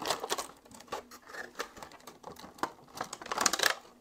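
Clear plastic packaging insert of a Hallmark Keepsake ornament crackling and clicking as it is handled and pressed together, with a louder cluster of crinkling a little after three seconds in.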